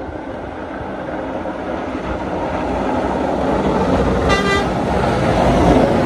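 Snowplow dump truck with front and wing plows approaching, its engine and plow noise growing steadily louder as it nears. There is a short horn toot about four seconds in.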